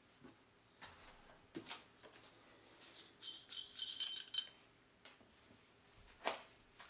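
Crinkling and rustling of handled craft scraps, loudest for about a second in the middle, among scattered light clicks and knocks. A sharp knock near the end as a lamp socket is handled over the lampshade frame.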